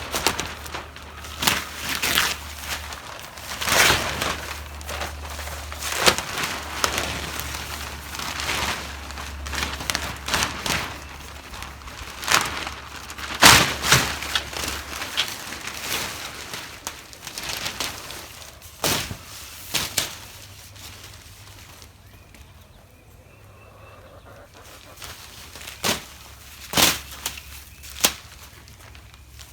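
Plastic sheeting being pulled off a chicken coop: irregular sharp crackles and snaps of stiff plastic, thick and fast for the first two-thirds, then thinning to a few scattered snaps near the end.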